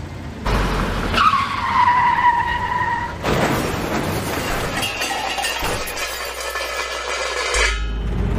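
Vehicle tyres screeching in a skid. A sudden rush of noise comes about half a second in, then a squeal that drops slightly in pitch and holds for about two seconds. Further surges and squeals follow.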